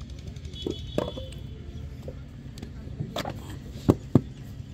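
Wooden brick mould knocking and thudding against sandy ground during hand-moulding of clay bricks, a few scattered knocks with two sharp ones close together near the end.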